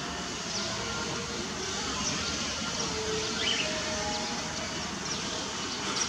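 Outdoor park ambience: a steady background hum of distant activity, with a faint high chirp about three and a half seconds in.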